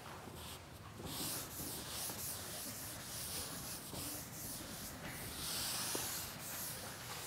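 Chalkboard eraser wiping chalk off a blackboard in repeated sweeping strokes, a scratchy hiss that starts about a second in.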